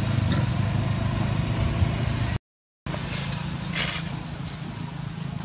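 Steady low outdoor rumble, cut off by a brief dead-silent dropout a little before halfway, then resuming more quietly, with a short rustling scrape about a second after the gap.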